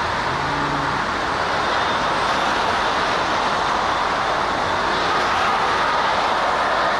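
Steady highway traffic noise: a dense, even hiss of many cars' tyres and engines, with a brief low hum about half a second in.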